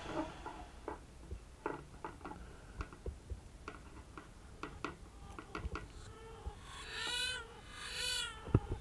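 Scattered light clicks and taps, then a cat meowing twice near the end, each call rising and falling in pitch.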